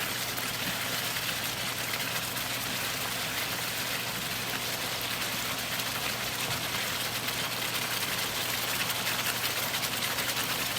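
Steady hiss of a ketchup and chicken-broth sauce simmering and sizzling in a stir-fry pan, with a constant low hum underneath.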